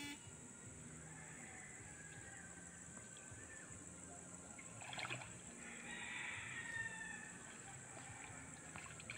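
Faint sloshing and trickling of shallow creek water, with a few light knocks about five seconds in.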